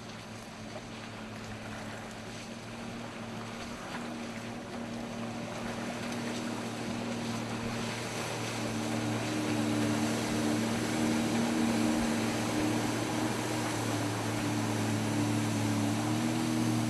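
Jet ski engine running steadily over water and wind noise, its hum growing louder through the clip, with a second, higher tone joining about halfway.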